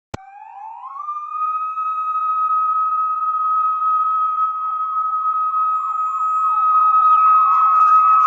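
A siren starting with a click, its tone rising over about a second and then holding a steady high wail that grows slowly louder, with quick falling warbles underneath.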